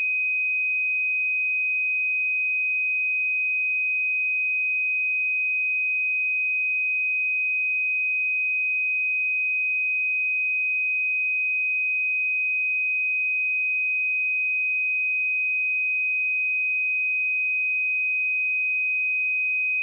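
A pure 2512 Hz sine-wave test tone, a single steady high-pitched note held at constant level.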